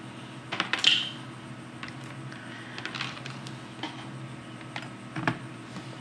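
Small plastic clicks and rattles of a USB charging cable being handled and plugged into a USB port, the sharpest clicks about a second in and near the end, over a low steady hum.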